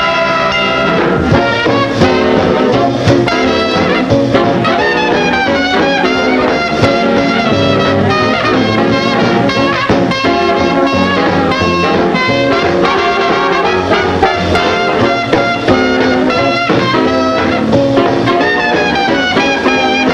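Swing big band playing an instrumental chorus, with brass to the fore over a steady beat, heard from a 1940s 16mm film soundtrack.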